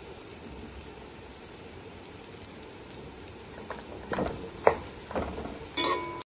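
Sliced onions frying in hot oil in a pot with a steady low sizzle; about four seconds in, a slotted spatula starts stirring them, scraping and knocking against the pan several times.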